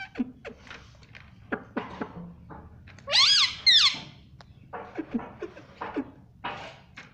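Ring-necked parakeet calling: soft clicks and short chatter, with two loud screeches about three seconds in that rise and fall in pitch.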